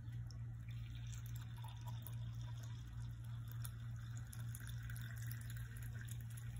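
Tea being poured into a glass mug, over a steady low hum.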